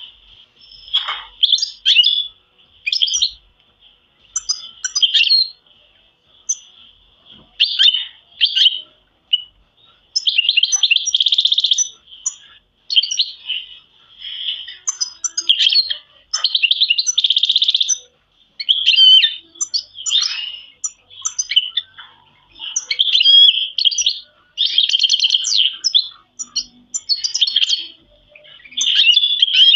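Domestic canaries singing: a string of rapid rolling trills and chirped phrases, each lasting about one to two seconds, with short pauses between them.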